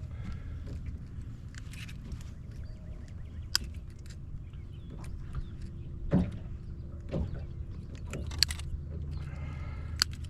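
Handling noises while a hooked bass tangled in fishing line is freed: scattered sharp clicks and knocks over a steady low rumble.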